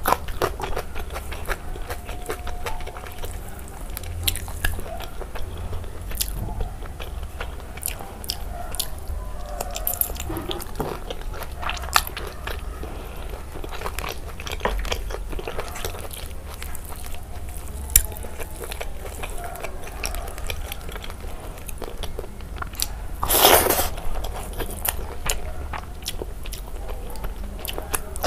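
Close-miked eating sounds: crunchy bites and wet chewing of pork belly curry, rice and raw vegetables, with many small mouth clicks. One louder, noisier burst lasting under a second comes near the end.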